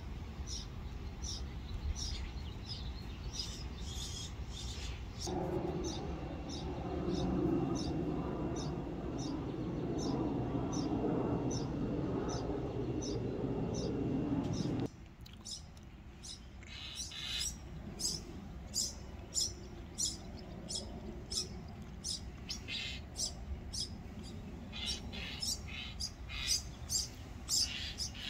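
Small songbirds chirping over and over in short, high notes, about one or two a second. A low rushing noise joins them about five seconds in and cuts off suddenly about fifteen seconds in.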